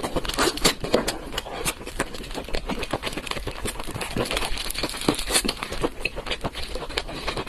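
Close-up eating sounds: chewing, with a rapid, uneven run of small clicks and smacks, several a second.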